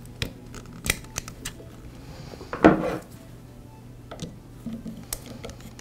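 Light clicks and taps of a plastic motor brush cap being fitted into the metal brush holder of a Porter Cable 690 router and a screwdriver being set into the cap's slot, with one louder short clatter about halfway through.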